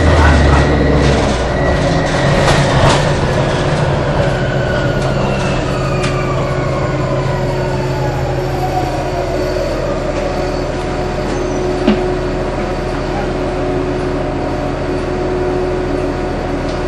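Cabin sound of a 2007 Orion VII diesel-electric hybrid bus under way: the electric drive's whine glides steadily down in pitch over the first half as the bus slows, over a steady low drone of engine and road noise. One short sharp click about twelve seconds in.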